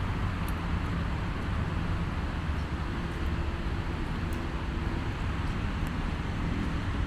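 Steady city street traffic noise: a continuous low rumble of vehicles with an even hiss over it, and no single event standing out.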